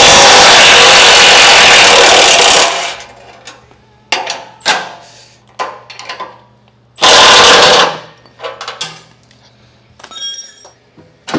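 Cordless impact wrench hammering bolts loose on a 1932 Ford's front crossmember, one long run of about three seconds and a second short one about seven seconds in. Metal clinks and knocks of loosened bolts and parts come between and after.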